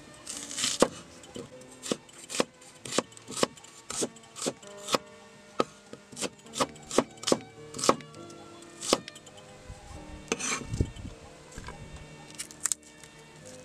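A steel cleaver slicing an onion on a wooden chopping board: a quick run of sharp knocks on the wood, two to three a second, about twenty in all. About ten seconds in there is a louder, rougher scraping as the slices are moved off the board, then a couple of single knocks.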